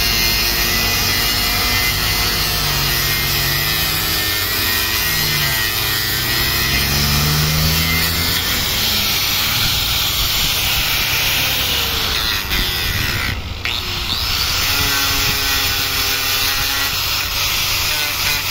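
Electric angle grinder with an abrasive disc running against carved wood, shaping and smoothing the surface. Its motor pitch sags and recovers as the disc bites and eases off, with a brief drop in level about two-thirds of the way through.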